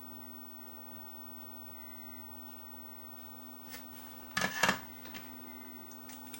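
Small handling noises on a workbench: a short, loud clatter of clicks and rustling about four and a half seconds in, with a few faint ticks, over a steady low electrical hum.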